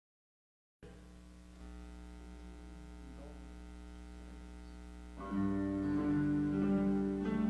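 After a brief silence, a student ensemble of keyboards, guitars and violins plays soft, sustained held chords. The chords grow louder about five seconds in.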